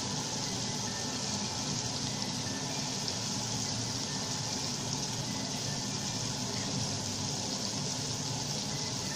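Onion, tomato and spice masala sizzling steadily in hot oil in a pan.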